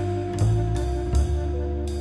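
Instrumental jazz music: held notes over a moving bass line, with a percussion hit roughly every three quarters of a second.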